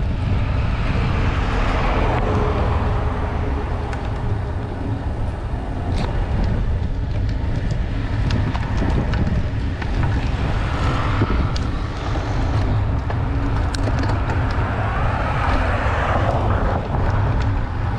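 Wind buffeting the microphone of a camera on a moving road bike, a steady low rumble with rushing road and tyre noise.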